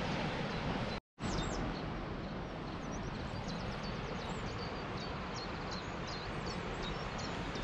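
A small songbird singing rapid, repeated high chirps over a steady outdoor background hiss. There is a brief dropout about a second in.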